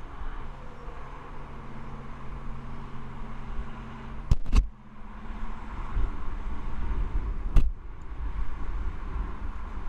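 Wind rumbling on an action camera's microphone high on a billboard, with the steady hiss of highway traffic below. A low steady hum runs through the first four seconds or so, and sharp clicks come twice in quick succession about four and a half seconds in and once more about seven and a half seconds in.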